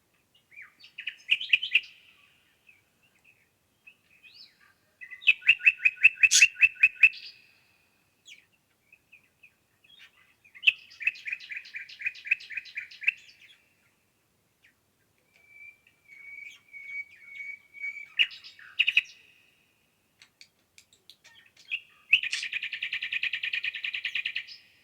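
Songbird singing: about five song phrases of one to three seconds each, separated by pauses of a few seconds, the last a fast, even trill.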